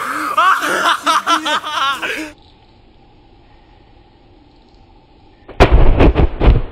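Acetylene-filled balloons exploding: a quick series of very loud blasts about five and a half seconds in, after a near-quiet stretch. Before that, excited voices whoop and shout for about two seconds.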